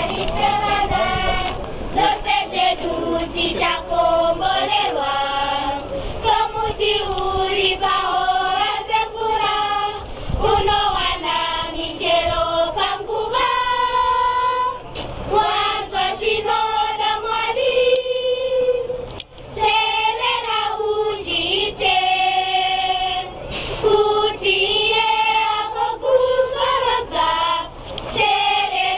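A group of children singing together unaccompanied, several voices in chorus, with a short break between phrases about nineteen seconds in.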